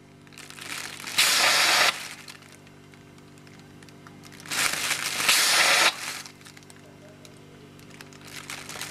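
CO2 hissing out of a home-brew keg's pressure relief valve as its pull-pin is lifted, twice, each release lasting about a second, with a third starting at the very end, while the plastic bag held over the valve crinkles. Each release vents gas from the keg's headspace to purge the oxygen, and the regulator's CO2 refills the keg between releases.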